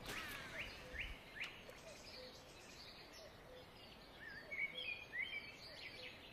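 Faint birds calling: many short chirps and whistles, growing busier from about four seconds in, with a few soft clicks in the first second and a half.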